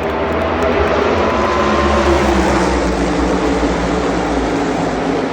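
NASCAR stock cars' V8 engines running at speed on the track, a dense loud drone that builds over the first two seconds and stays high.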